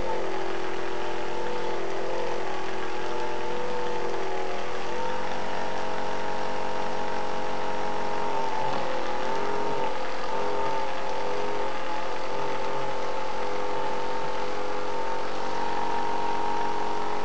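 Electric back massager running with a steady motor hum, its pitch dipping and shifting now and then.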